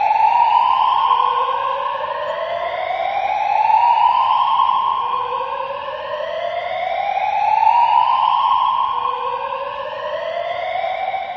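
Fire alarm siren whooping in slow rising sweeps, each climbing in pitch over two to three seconds and repeating about every three and a half seconds, with heavy reverb. The last sweep is weaker and lower as the sound fades out near the end.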